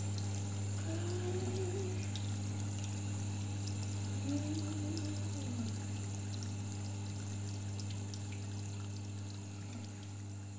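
Water running from a tap into a washbasin, over a steady low hum with a few faint wavering notes.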